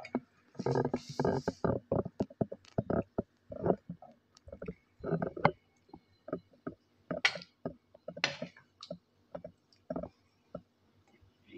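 A spoon clinking and scraping on a plate as curry is spooned over rice: a run of irregular small knocks, with a few short scrapes.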